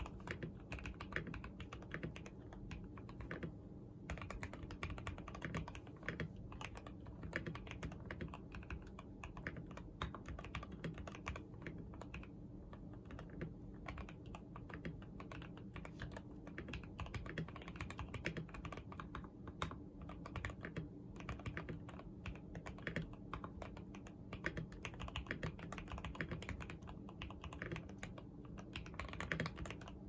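Steady, fast typing on a Mizar 60 60% mechanical keyboard fitted with Gateron Yellow linear switches, with KTT Sea Salt Lemon switches on the outer keys and a Koala switch under the space bar: a dense, uneven stream of key clacks. Its owner thinks it sounds weird.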